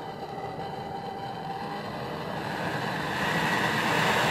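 Hand-held brazing gas torch burning with a steady hissing flame, fed from a gas cylinder by a hose. About three seconds in it gets louder as the gas valve is opened further and the flame grows longer.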